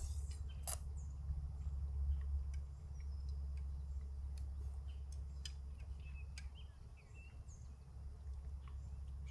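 Outdoor ambience: a steady low rumble with faint, scattered bird chirps, and a few sharp clicks in the first second.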